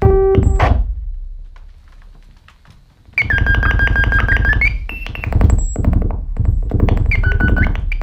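Improvised electronic music from a synthesizer and hand-wired breadboard circuits: a pitched tone starts suddenly and fades over about a second, then about three seconds in a fast, buzzing pulse sets in with a high whistling tone that glides in, holds and glides out, returning briefly near the end.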